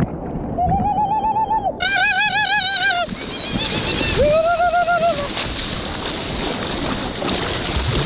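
A short melodic line of four held notes with a strong, even vibrato, in the first five seconds, over the steady rush of river water and wind noise on the microphone.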